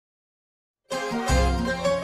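Music starting about a second in after silence: a plucked-string melody over a deep bass note that returns about once a second.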